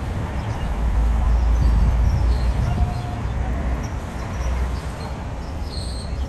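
Wind buffeting the microphone as a steady low rumble, over a faint distant crowd and harbour ambience.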